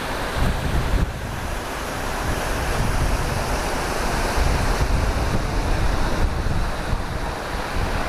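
Tall waterfall's steady, loud rush of falling water, with wind rumbling unevenly on the microphone.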